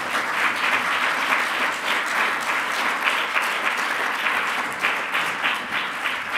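Audience applauding: dense, steady clapping from many hands, beginning to thin out near the end.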